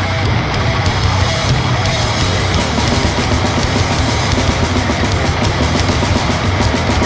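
Grindcore music: heavily distorted guitar and bass over fast, dense drumming, loud and unbroken.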